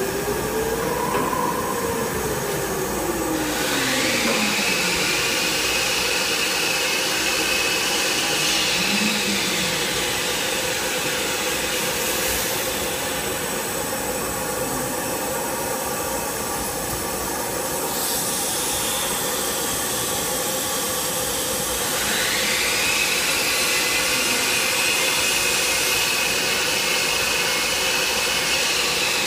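Thermwood five-axis CNC router running, over a steady hiss. Twice a high whine rises in pitch and then holds, as the spindle spins up to speed; a lower tone swoops up and back down near the start.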